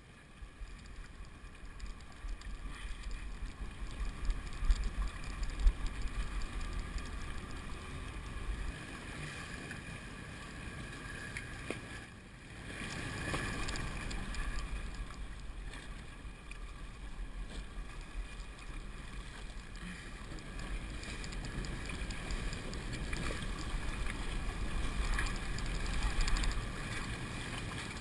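Open-water boat ambience: wind rumbling on the camera microphone, water washing against the hull and a steady hum of boat engines.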